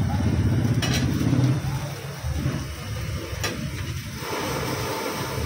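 Low rumbling background with faint voices, broken by two sharp clicks about a second in and about three and a half seconds in.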